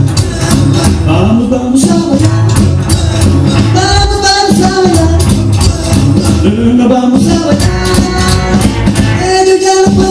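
A recorded Spanish rock'n'roll song playing, with a steady drum beat, bass and a sung melody line.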